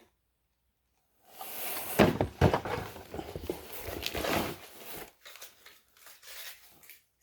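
Rummaging through a box of small parts and odds and ends: rustling and clattering, with a few sharp knocks about two and four seconds in. It is silent for the first second or so.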